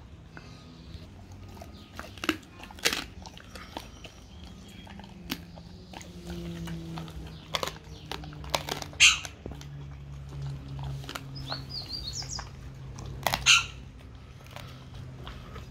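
Dog chewing a raw turkey wing, with irregular wet chewing and several sharp bone crunches, the loudest about nine seconds in and again near the end.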